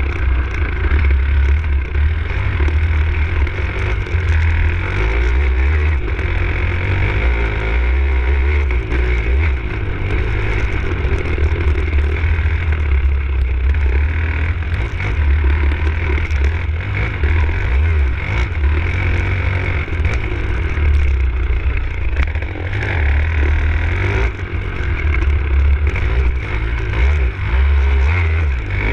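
Enduro dirt bike engine running as the bike is ridden, the revs rising and falling continually, heard from on board with heavy wind rumble on the microphone.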